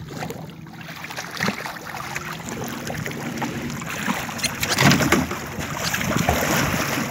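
Water splashing as a hooked tarpon thrashes at the side of a small boat, loudest about five seconds in, over the steady hum of an idling outboard motor.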